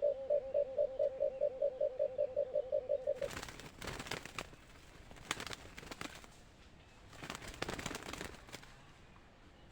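Dove cooing: a fast string of short, even-pitched coos, about six a second, that stops about three seconds in. After it come a few faint rustles.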